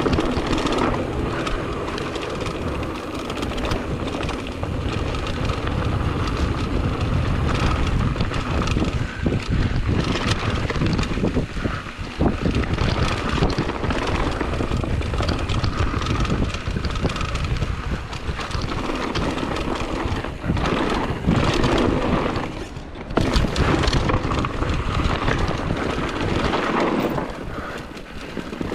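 Mountain bike descending a rough dirt trail: tyres rolling over dirt and stones and the bike rattling over bumps, with heavy wind buffeting the camera microphone. The noise briefly drops about twenty-three seconds in.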